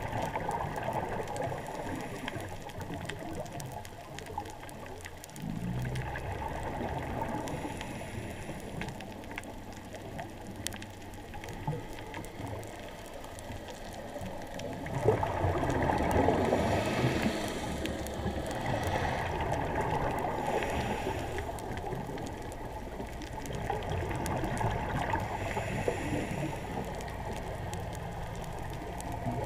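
Underwater ambience heard through a GoPro's waterproof housing: a muffled, steady rush of water, with louder swells now and then, the strongest about halfway through.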